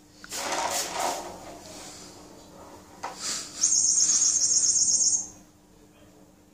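Squeaky fishing-rod pet toy giving a rapid, high-pitched chirping trill for about a second and a half, after a couple of short bursts of rustling.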